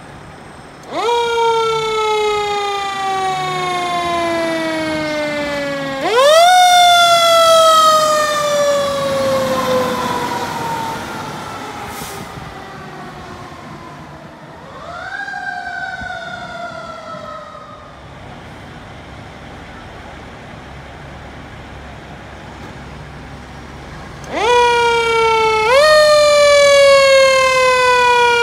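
Fire engine sirens wound up again and again, each rising sharply and then falling away slowly over several seconds, with a short blip partway through and quieter road noise between the wind-ups.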